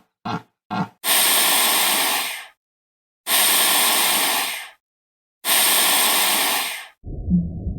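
Two short grunt-like pulses, then three loud, long hisses of about a second and a half each with short silent gaps between them. Near the end a low, rumbling sound begins.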